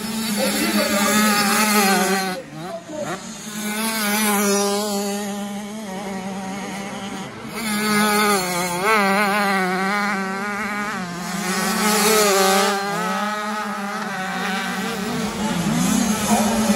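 Several small youth motocross bikes racing along a sand track, their engines revving up and down through the gears as they pass, over a steady drone.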